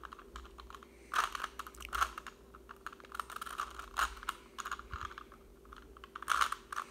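Plastic Rubik's cube being twisted by hand: irregular clicking and clacking as its layers turn, with a few louder snaps.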